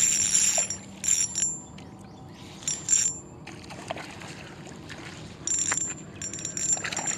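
Fishing reel whirring in short spurts, about five times, as a hooked bass is cranked in to the bank, with splashing from the fish at the surface.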